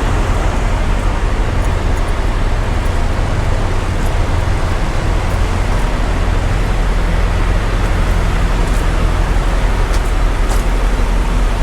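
Semi truck's diesel engine idling close by: a steady, deep rumble. A few faint ticks come near the end.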